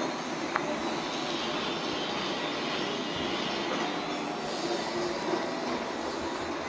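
Robot vacuum cleaner running, a steady whir of its fan and brushes, with a small click about half a second in.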